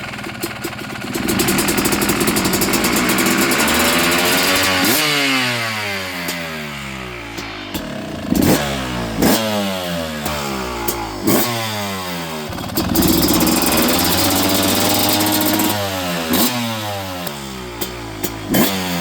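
Two-stroke dirt bike engine with an aftermarket exhaust pipe being revved: held at high revs for a few seconds, then blipped sharply about five times, each rev dropping back toward idle.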